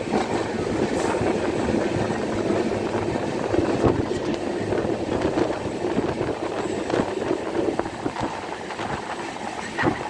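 Passenger train running on the line, heard from aboard a coach: a steady rumble of wheels on rails with irregular clicks and clacks, one sharper clack near the end.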